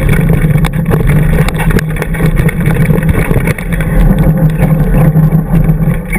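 Gary Fisher Cobia 29er mountain bike rolling fast downhill on a dirt trail, heard through a handlebar-mounted camera. Its knobby tyres make a steady loud rumble on dirt and gravel, mixed with wind on the microphone and scattered sharp knocks as the bike rattles over bumps.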